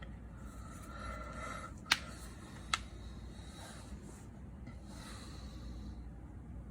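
Two sharp clicks about a second apart, from handling the iPhone 6s Plus and small tools on the repair bench, over a low steady hum.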